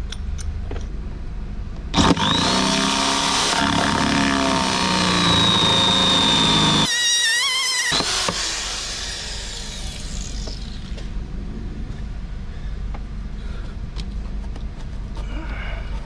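Hand-held electric drill boring a hole through the engine bay's rear panel. It starts sharply about two seconds in with a rising whine and runs for about six seconds. A brief wavering squeal comes just before it winds down.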